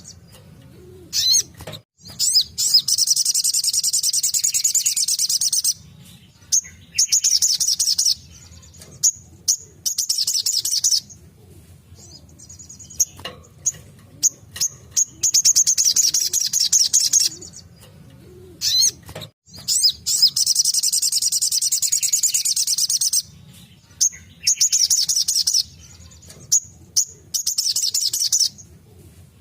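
Little spiderhunter (sogok ontong) singing its 'tembakan' song: high notes repeated very fast in bursts of one to three seconds, about ten bursts with short gaps and a few single chirps between them.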